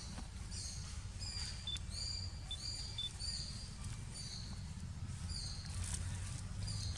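A small bird chirping over and over in short, high notes, some dropping in pitch, about once or twice a second, over a steady low rumble.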